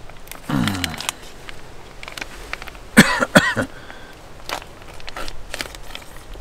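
Crinkling and clicking of a foil MRE food pouch being handled and opened. Two short voice sounds are heard: one falling in pitch near the start, and a louder, cough-like one about three seconds in.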